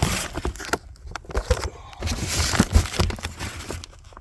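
Handling noise from the packaging of a fireworks cake: irregular crinkling, crumpling and rustling with short clicks as the cardboard and wrapping are turned over in the hands.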